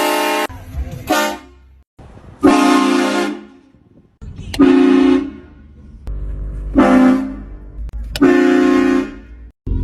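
Train horn sounded repeatedly as a prank, a loud chord of several steady tones in short blasts of half a second to a second, about every one to two seconds.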